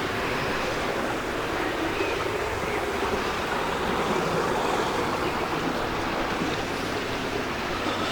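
Water rushing steadily through a mill's sluice and over a turning water wheel, the flow opened up to bring the wheel to speed.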